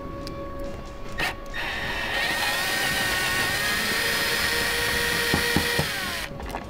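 Milwaukee cordless drill/driver with a socket extension running steadily for about five seconds, with a constant whine, as it turns out a bumper bracket bolt. It starts about a second and a half in and stops near the end.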